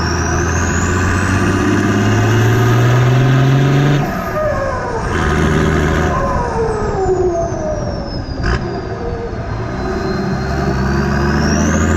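Turbocharged Nissan Patrol GQ TD42 straight-six diesel revving up, then backing off at about four seconds. The turbo whistles and winds down in falling tones, and a high-pitched whistle rises and falls throughout. There is a single sharp click near the end, before the revs climb again.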